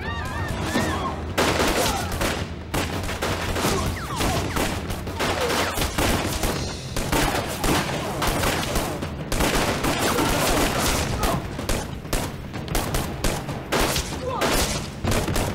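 Sustained gunfire: a long exchange of many shots in quick, overlapping succession, starting about a second and a half in and going on through the rest.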